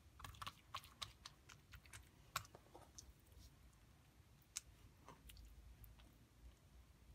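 Faint sticky clicks and taps of oiled msemen dough being pressed and folded by hand on a marble countertop: a quick flurry in the first three seconds, then a few scattered ones.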